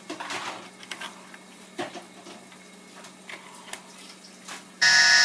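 Scattered light clicks and taps of the white plastic DJI Phantom 2 Vision+ shell and motor being handled as a motor is fitted into an arm. Near the end a loud, sustained electronic chord cuts in suddenly.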